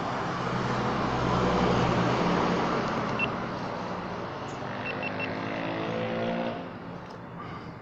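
Motor vehicle engine running with road noise, a steady low hum at first. A second engine note climbs slightly over a couple of seconds before the sound fades near the end.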